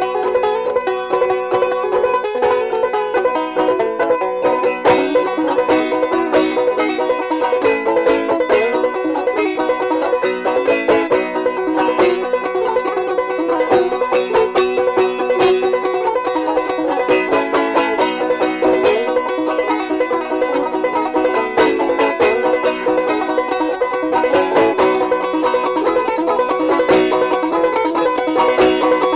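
Background music: fast picked banjo in a bluegrass or country style.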